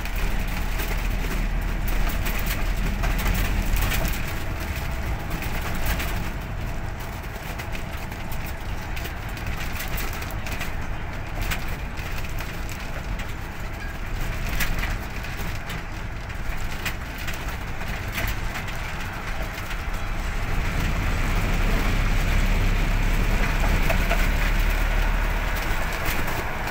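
Wind buffeting the microphone over steady road and engine noise from a moving vehicle at highway speed, with a deep rumble that swells at the start and again near the end.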